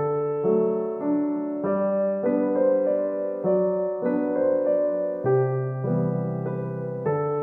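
Background music: a gentle solo piano piece playing soft chords and a slow melody.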